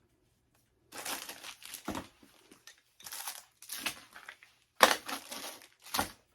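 Packaging being crumpled and crinkled by hand as ring light parts are unwrapped, in four noisy bursts starting about a second in, the loudest a little before five seconds in.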